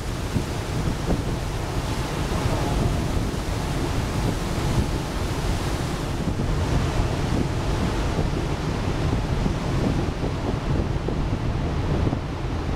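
Wind buffeting the microphone over the steady rush of water and waves, recorded aboard a moving ferry.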